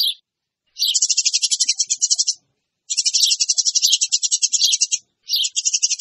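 Eurasian tree sparrows chattering: a brief call, then three bouts of rapid, high chirps at about ten notes a second, each bout lasting one and a half to two seconds, with short pauses between.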